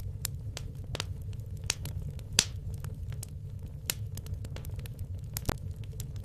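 Wood fire burning in a fireplace: irregular sharp crackles and pops over a steady low rumble of the flames, with one louder pop about two and a half seconds in.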